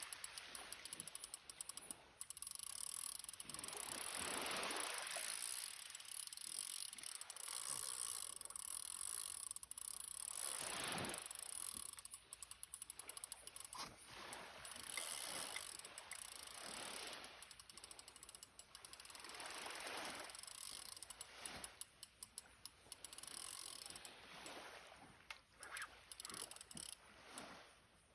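Fishing reel's drag clicking as a hooked giant trevally pulls line off against it, with rushes of noise swelling and fading every few seconds.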